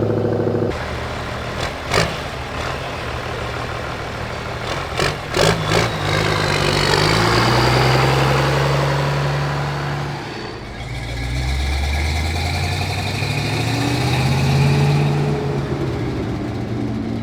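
Car engine running and revving, with sharp cracks about two seconds in and again a few times around five to six seconds. After about ten seconds the engine note drops lower before picking up again.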